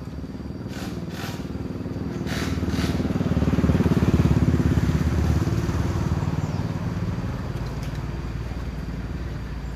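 Motorcycle engine running, growing louder to a peak about four seconds in and then fading away, as a motorbike passes by.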